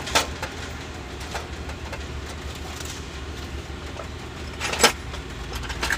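A truck's engine running with a steady low drone, heard from inside the cab. There are a few sharp clicks, the loudest about five seconds in.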